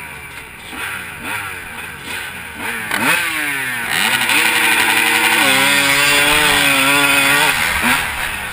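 Motocross bike engines at the starting gate revving in short blips, then the rider's own bike held at full throttle from about four seconds in as it launches, its pitch climbing and stepping up through a gear change before easing off near the end.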